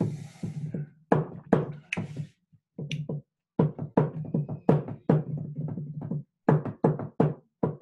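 Music with a steady beat and a low bass line. A short burst of hiss at the very start.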